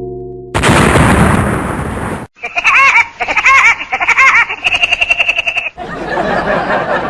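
A run of retro cartoon sound effects: a loud cartoon explosion about half a second in, lasting nearly two seconds, then a quick chattering series of springy, bouncing pitched pulses, then a noisy rush near the end.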